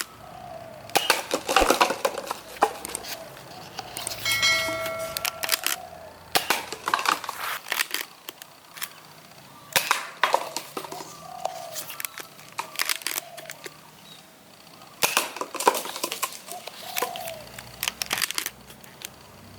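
Toy blasters being handled, giving scattered sharp plastic clicks and clatter. A short pitched tone sounds about four seconds in.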